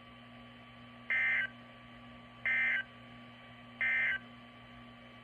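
Emergency Alert System end-of-message tones on NOAA Weather Radio: three short, identical bursts of warbling SAME data tones, about a second and a half apart, marking the end of the tornado warning broadcast.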